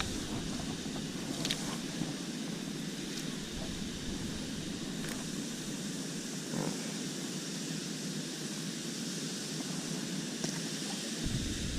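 Steady outdoor background hiss with a few faint clicks.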